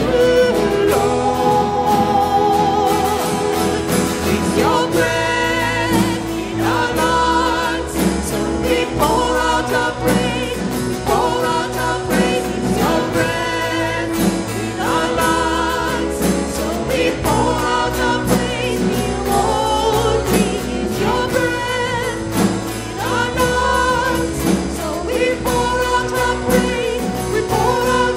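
Live church worship band playing and singing a contemporary worship song. Two women sing lead over acoustic guitar, keyboard and drums, with a steady beat.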